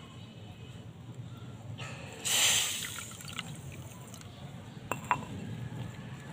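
Water poured in a thin stream from a small cup into a steel bowl of sugar, the start of the syrup. It splashes loudly about two seconds in and trails off over a second or so, followed by two sharp ticks about five seconds in.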